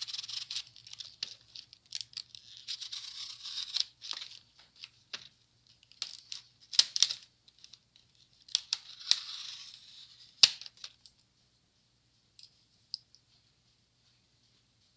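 Clear plastic blister package being pried and torn open by hand: crinkling and crackling with sharp plastic snaps, the loudest about ten seconds in, stopping about eleven seconds in.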